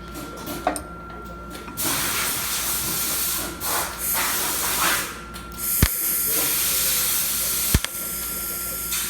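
TIG welding arc hissing on thin stainless steel sheet, starting about two seconds in, breaking off briefly twice and starting again, with two sharp clicks near the end.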